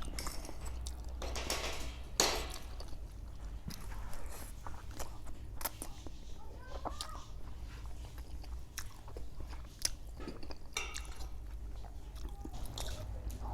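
Close-miked chewing and biting of spicy noodles, many short wet clicks of the mouth, with a sharper, louder bite about two seconds in. A low steady hum runs underneath.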